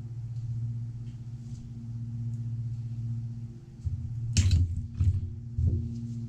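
Steady low mechanical hum of a running motor, with a few sharp knocks and clatters about four to six seconds in, the loudest about four and a half seconds in, from metal starter parts being handled on a bench.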